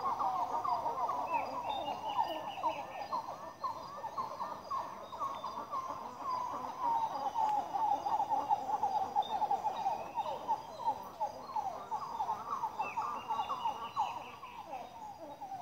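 Rainforest dawn chorus: a dense, unbroken chatter of many short, repeated animal calls. Higher calls rise over it near the start and again about three quarters through.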